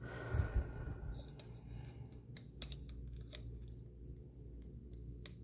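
Scattered light clicks and taps of small hard parts being handled as a brushless RC motor is lined up against its motor mount on the chassis plate, with a couple of low bumps about half a second in.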